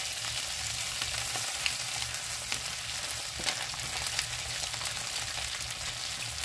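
Chicken wings sizzling in hot oil in a frying pan, a steady crackling hiss with scattered pops, while a wooden spatula stirs and turns them. A low steady hum runs underneath.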